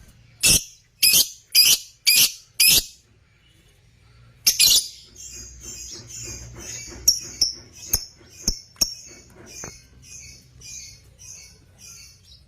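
Lovebirds calling: five sharp, harsh shrieks about half a second apart, then after a short pause a loud call followed by a run of quicker, softer chirps that fade away.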